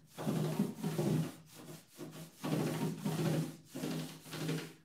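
Paintbrush strokes on the top of a wooden radio cabinet, a rubbing swish about six times back and forth, each stroke under a second long.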